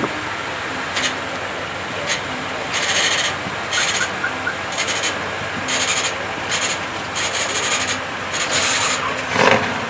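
A run of short scratchy, hissing strokes, about eight over six seconds, over steady background noise.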